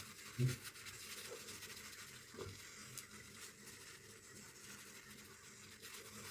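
Faint rubbing of hands massaging face wash over wet skin. A brief low sound comes about half a second in, and a softer one a couple of seconds later.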